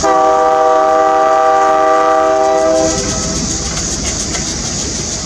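Diesel locomotive's multi-chime air horn sounding one long blast of about three seconds, a chord of several notes that cuts off cleanly. The locomotive keeps rumbling on the rails afterwards.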